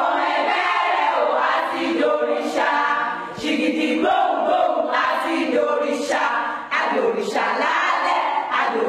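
A crowd of many voices singing together.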